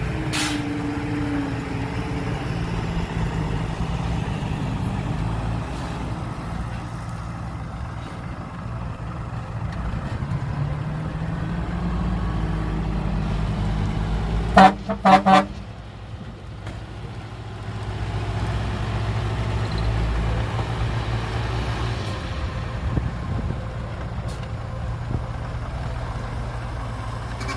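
Heavy truck's diesel engine running with a low rumble that rises and falls, and about halfway through three short, loud horn toots in quick succession.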